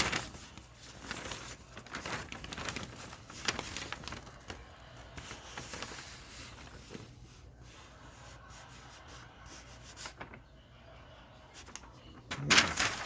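Paper store ad circulars rustling and crinkling as they are handled and their pages turned, in scattered bursts, with a louder rustle near the end.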